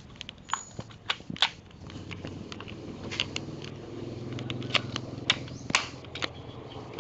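Clicks and knocks of a spring M47 airsoft shotgun being handled, about eight in all and unevenly spaced, over a steady low hum.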